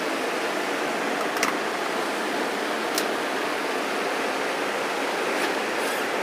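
Steady rushing hiss covering the whole sound track, with a few short clicks scattered through it: a fault in the sound recording.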